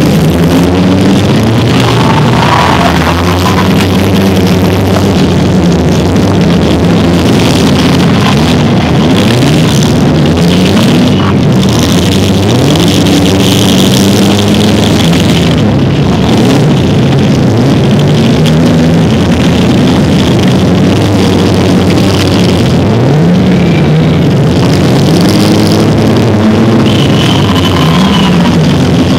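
Several four-cylinder demolition derby cars running at once, their engines revving up and down over and over in a loud, continuous din.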